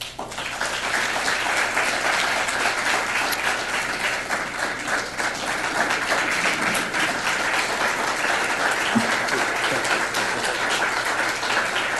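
Audience applauding: a roomful of people clapping. The applause breaks out at once, builds over the first second, then holds steady.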